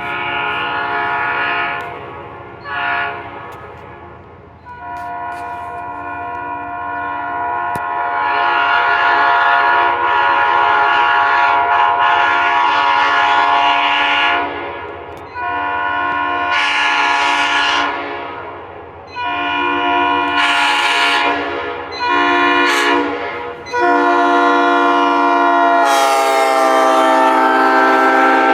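Locomotive air horn sounding a string of blasts, short and long: two near the start, a long held blast in the middle, then several shorter ones and a final long blast whose pitch sags slightly as it ends.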